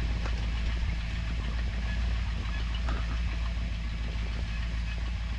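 Boat engine idling steadily with a low, even hum, with a few faint clicks over it.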